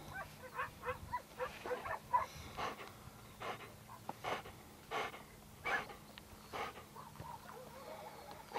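English Pointer panting, with quick, irregular breaths.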